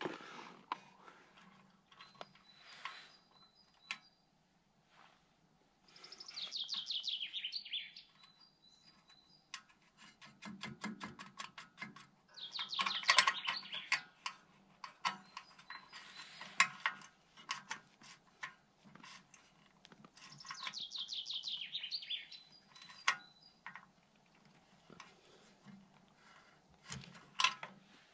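A songbird sings a short descending trilled phrase three times, several seconds apart, over scattered small clicks and taps of hand-tool work.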